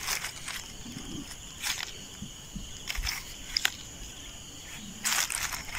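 Dry straw and stalks crackling and crunching in several short bursts, the loudest near the end, over a steady high insect drone.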